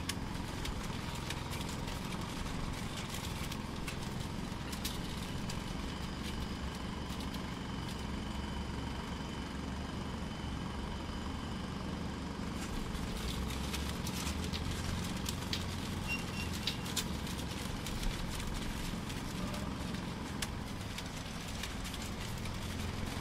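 Heavy machine engine running, a steady low rumble with scattered light clicks and knocks.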